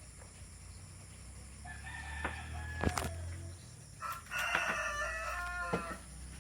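A rooster crowing twice, the second crow louder and fuller, with a couple of sharp clicks about three seconds in.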